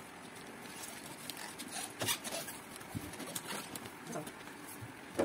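Scissors cutting through gift-wrapping paper on a cardboard box, with scattered soft snips and paper rustles.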